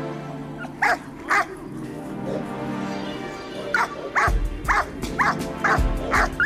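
Young Rottweiler, 7.5 months old, barking in protection training over background music: two sharp barks about a second in, then a run of about six barks at roughly two a second from about four seconds in.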